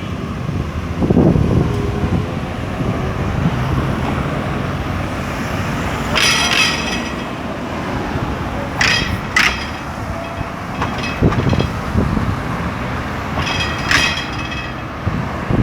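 Street traffic: vehicle engines running close by with a steady low rumble, and short high-pitched sounds about six, nine and fourteen seconds in.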